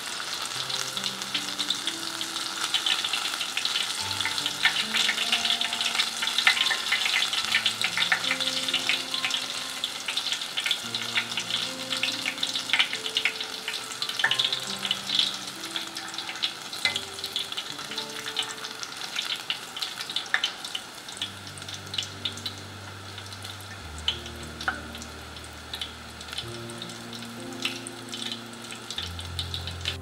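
Battered enoki mushrooms deep-frying in hot oil in a steel pot: a busy crackling sizzle, densest in the first half and thinning toward the end.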